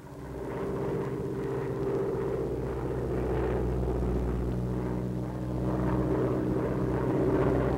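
Steady drone of a PBY Catalina flying boat's twin radial engines in flight, fading up over the first second.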